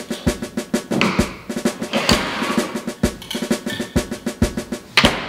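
Background music with a fast, driving drum beat, snare hits and a steady pitched backing.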